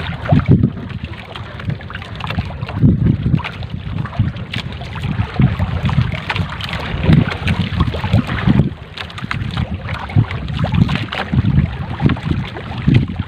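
Wind buffeting the microphone over water lapping and splashing at a small boat's hull, with the rustle and drip of a wet trammel net being hauled in by hand over the gunwale.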